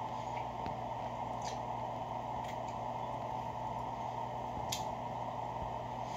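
A man chewing a sausage muffin, with a few brief crinkles of its paper wrapper, over a steady background hum.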